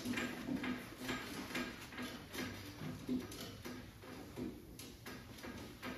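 A cloth wiping across the painted panel of a car door, rubbing back and forth in short strokes about twice a second, clearing off the slurry left by 3000-grit wet sanding.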